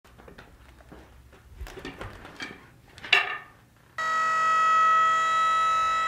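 Wood-Mizer LT35 portable sawmill running. A loud, steady, high-pitched whine starts abruptly about four seconds in, after a few quieter knocks and scrapes.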